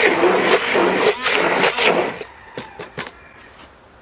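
Philips 600-watt hand blender running in a bucket of chopped apple mash, its motor note surging as it churns, then switched off about two seconds in. A few light knocks follow.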